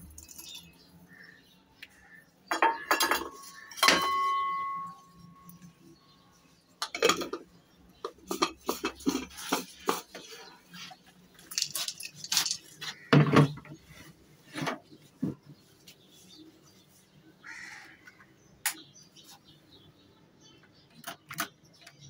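Dry seeds and pods rattling and clinking as they are tipped from a stainless steel bowl into a glass grinder jar, with one ringing clang from the steel bowl about four seconds in. Scattered knocks and clicks follow as the jar is handled and set on the mixer grinder base; the grinder motor does not run.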